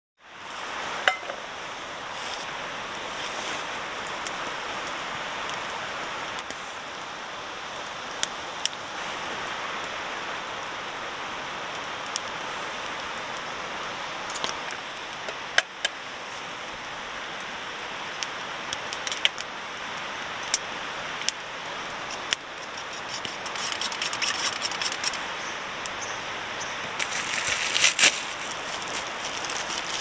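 A river flowing with a steady rushing sound, with scattered sharp clicks and crackles throughout and a louder cluster of them near the end.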